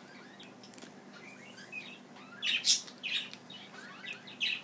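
A small bird chirping in short calls, several times over, loudest a little past halfway.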